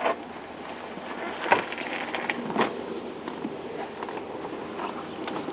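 Steady outdoor hiss with a few short knocks and rustles; the two sharpest come about one and a half and two and a half seconds in.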